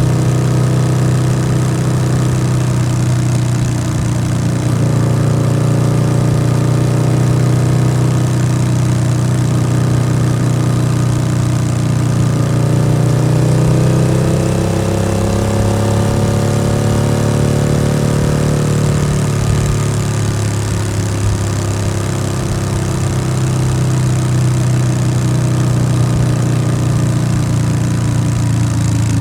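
Yamaha XSR700's 689 cc parallel-twin engine running steadily through an aftermarket SC-Project exhaust, its pitch drifting gently up and down.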